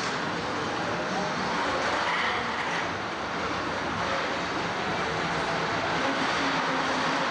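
Funfair din: a spinning ride running, with the crowd around it, as a steady dense noise.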